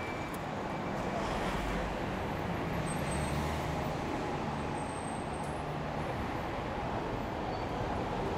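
City street traffic: a steady wash of road noise as vehicles pass, with a deeper engine hum strongest from about three to five seconds in.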